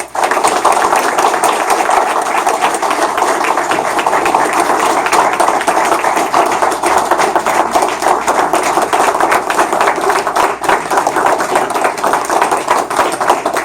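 An audience applauding: loud, dense clapping that starts abruptly.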